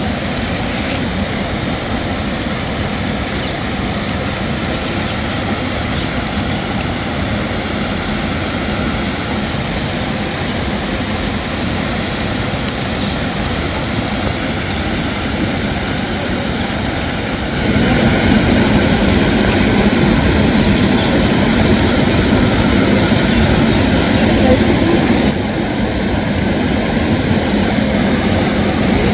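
Steady rushing outdoor noise with no distinct events. It gets louder about two-thirds of the way through, then eases back a little near the end.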